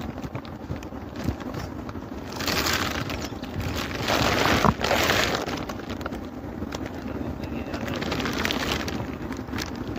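Wind buffeting the microphone, swelling in two louder gusts within the first five seconds.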